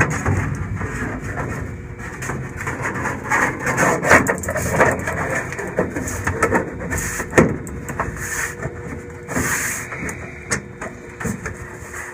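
Handling sounds: irregular knocks, clatter and rubbing as a riveted aluminium flaperon rod cover is moved and set in place in a homebuilt aircraft's fuselage, with a faint steady hum underneath.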